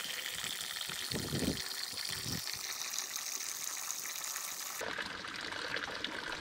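Thin stream of water from a hydraulic ram pump's delivery pipe trickling steadily into a plastic quart cup, filling it at about half a gallon a minute.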